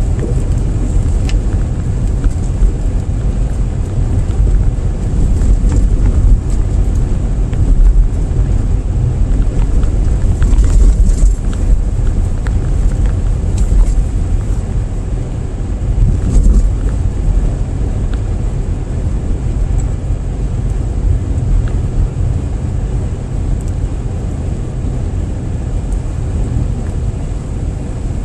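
Car driving on a road, heard from inside the cabin: a steady low rumble of engine and tyres.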